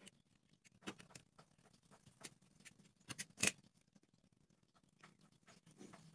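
Scattered small wooden clicks and taps from a thin bamboo stick being cut with a craft knife and handled against a popsicle-stick frame, the sharpest click about three and a half seconds in.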